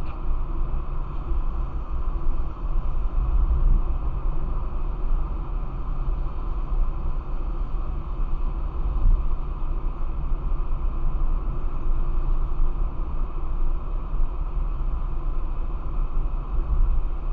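Steady engine and tyre noise inside a car cruising at about 60 km/h, an even, mostly deep sound with no changes.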